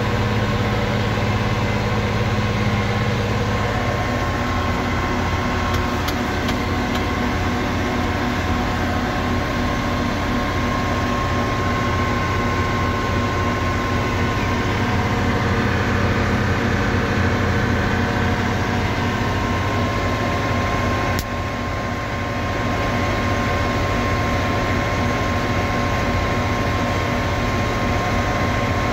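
Heavy farm machinery running steadily at corn harvest, a continuous engine drone with steady whining tones over it. The level dips briefly a little past the two-thirds mark, then carries on.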